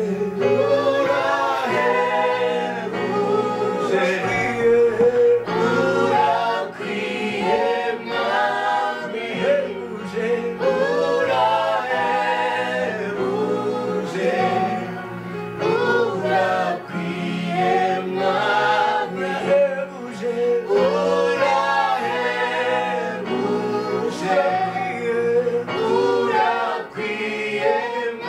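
Choir singing a gospel worship song, several voices together in continuous melody.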